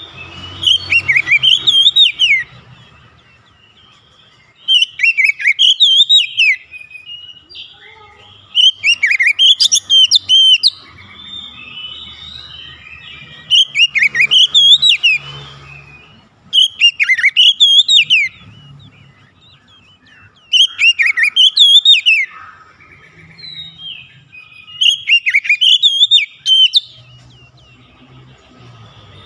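Oriental magpie-robin singing: loud phrases of swooping, warbled whistles, each about two seconds long, repeated roughly every four seconds, with softer chattering notes between them.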